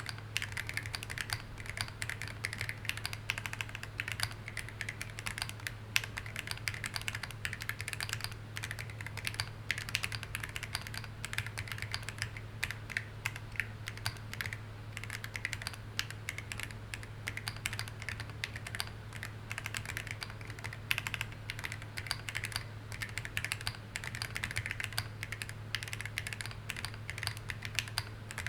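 Steady, fast typing on a custom 50 percent mechanical keyboard (H50): a dense run of keystroke clicks and clacks, uneven in rhythm, over a steady low hum.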